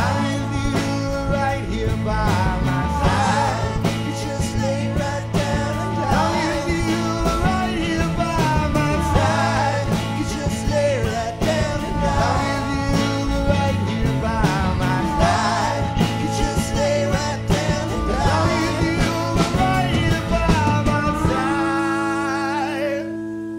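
Rock band playing the close of a song, with a wavering melodic lead over full band backing. About 21 seconds in the playing stops, leaving a held chord ringing and fading out.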